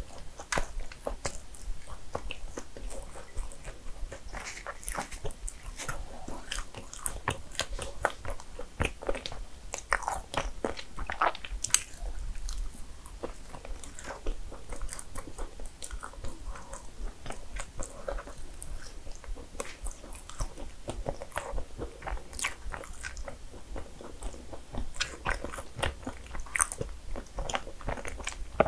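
Close-miked eating of cinnamon rolls: biting and chewing, with many small crunches and crisp clicks at irregular intervals.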